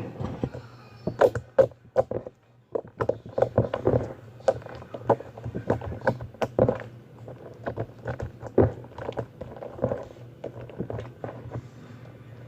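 Jiggly slime being squished and poked by hand for ASMR, giving irregular wet clicks and pops several times a second, over a low steady hum.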